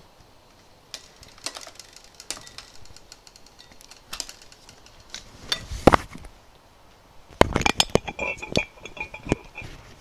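A glass juice bottle being handled and its screw cap twisted off: scattered clicks and knocks, a sharp knock about six seconds in, then a quick run of clicks with a short squeak near the end as the cap turns.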